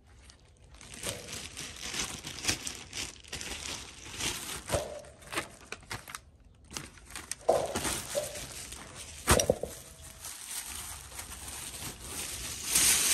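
Clear plastic garment bag crinkling and rustling as it is handled and opened, with scattered sharp crackles.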